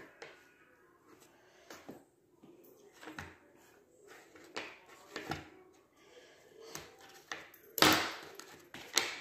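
Kitchen knife cutting butter into cubes against a plastic container, giving scattered light clicks and taps, with pieces dropped into a plastic jug; the loudest knock comes about 8 seconds in.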